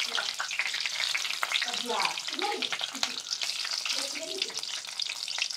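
Hot cooking oil sizzling and crackling steadily around small pieces of plastic milk-packet film dropped into it to fry.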